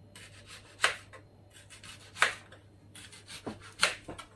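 Kitchen knife slicing a fresh young onion into half rings on a plastic cutting board. Three sharp cutting strokes come about a second and a half apart, with fainter cuts and scraping between them.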